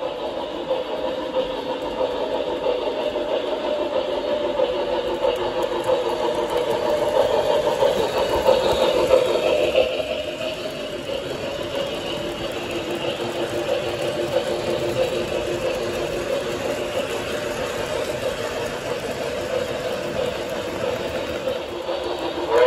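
O-gauge model freight cars rolling past on three-rail track: a steady rumble of metal wheels on the rails with a humming tone running through it.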